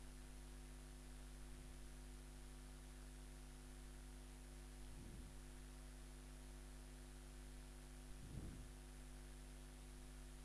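Near silence: a steady low electrical hum on the recording, with two faint brief sounds about five and eight seconds in.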